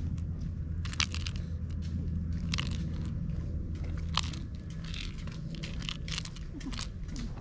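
Irregular scratchy clicks and crackles as a cat bats at and bites a fluffy teaser toy on a string, over a steady low hum.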